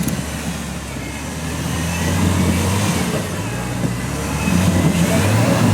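An off-road vehicle's engine running under load, with its note growing louder about two seconds in and again near the end, as when revved up on the course.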